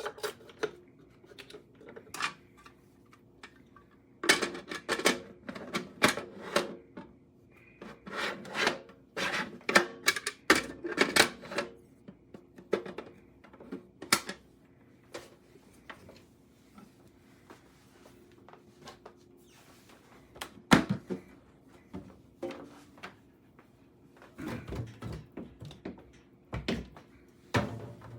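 Objects being handled: irregular runs of sharp clicks and clattering knocks, busiest through the first half and again near the end, over a faint steady hum.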